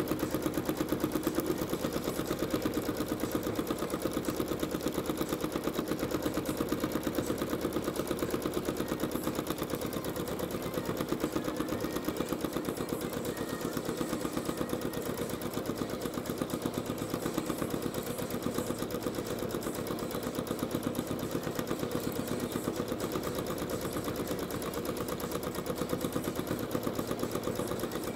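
Janome Skyline S9 sewing machine running steadily at speed, its needle stitching in a rapid, even rhythm through the quilt.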